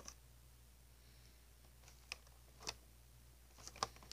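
Faint handling sounds of carded plastic blister packs, a few short clicks and crinkles with the sharpest near the end, over a low steady hum.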